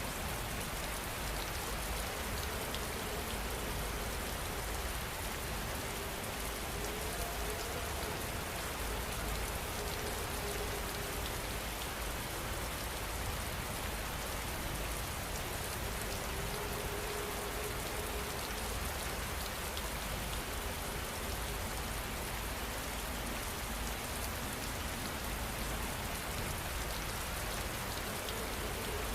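Steady heavy rain falling, an even dense patter with a low rumble underneath.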